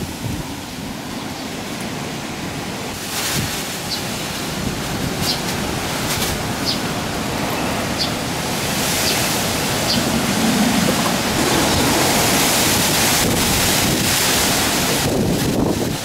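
Typhoon wind gusting through garden trees and buffeting the microphone: a steady rushing noise that swells louder about halfway through. A few faint, short, high chirps sound over it before the swell.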